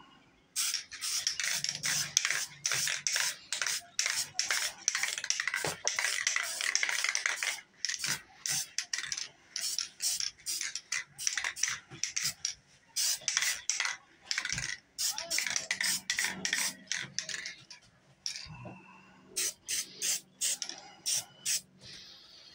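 Aerosol spray paint can hissing in short bursts. Near-continuous spraying fills the first several seconds, then come separate short squirts with gaps between them, fewer toward the end.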